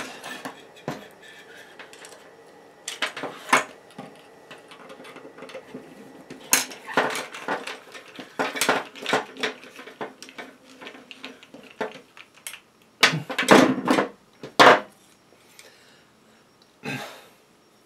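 Small tools and hardware clicking and clinking as a small screw is driven with a screwdriver into a nut held in pliers on a carbon fibre bracket, with irregular clusters of clicks and a few louder knocks about three-quarters of the way through.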